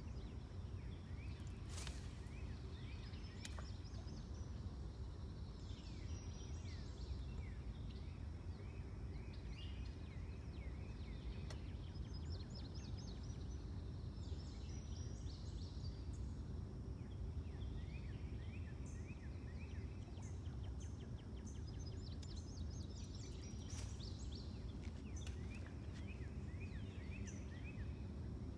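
Several small birds chirping and singing, with many short quick calls coming in clusters. Under them runs a steady low outdoor rumble.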